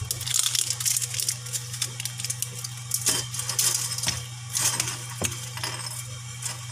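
Close-up chewing of food with the mouth closed: irregular clicks and crackles, over a steady low hum.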